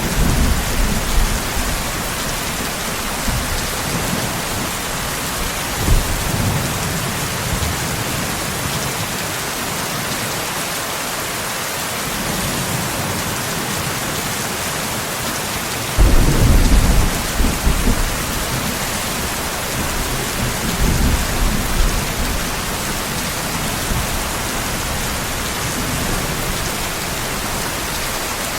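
Steady rain with several low rolls of thunder. The loudest rumble starts about sixteen seconds in, with shorter ones near the start, about six seconds in, and around twenty seconds in.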